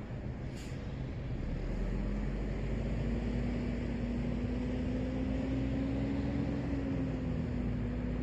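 Road traffic: a steady rush of tyre and engine noise that swells about a second and a half in as a vehicle draws near, with a low engine hum that rises a little in pitch and eases back down near the end.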